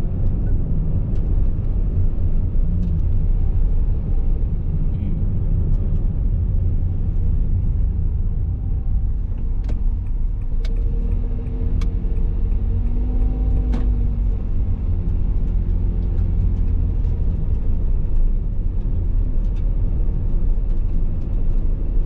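Steady low rumble of a car driving, heard from inside the cabin. There are a few faint clicks, and a brief pitched hum about halfway through.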